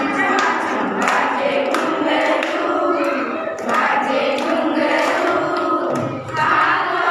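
A group of women and girls singing a devotional song together in unison, with hand-clapping.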